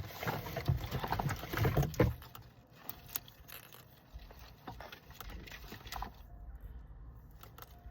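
Rustling and crinkling as craft items and ribbon spools are handled and pulled out of a cardboard box. It is densest for the first two seconds, then thins to scattered light clicks and taps.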